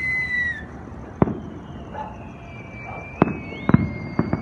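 Fireworks bursting: a sharp bang about a second in and a quick run of three or four bangs near the end. A long high whistle runs under them, falling slowly and then rising.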